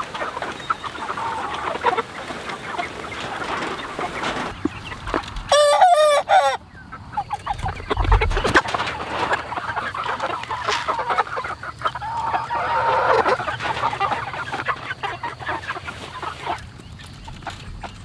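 A flock of chickens clucking busily at feeding time, with one bird's loud, wavering call about five and a half seconds in that lasts about a second.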